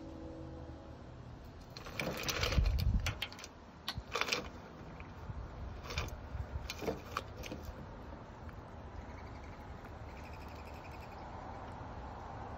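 Chipmunk scrabbling inside a plastic cup: its claws click, scrape and knock against the plastic in a busy cluster, with a low thump about two seconds in. The sounds thin out to a few clicks and stop a little past the middle.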